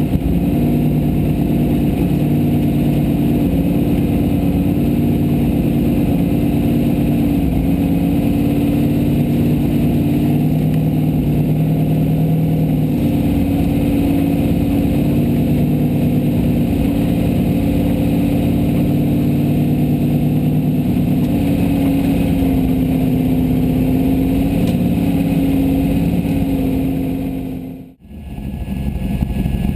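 Formula Offroad race car engine running hard and loud, its pitch shifting up and down with the throttle, picked up by the in-car camera. The sound cuts out for a moment near the end, then returns.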